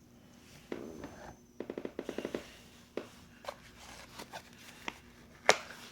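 Items in a flashlight's cardboard packaging being handled and slid out: a quick rattle of about ten clicks, then scattered taps and one sharp click near the end.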